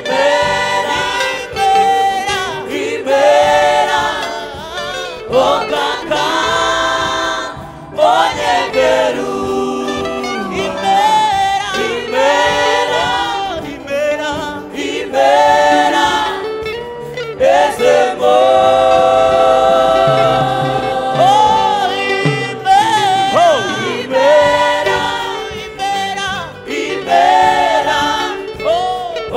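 Gospel song sung in Kinyarwanda by several voices in harmony, phrase after phrase with short breaks between.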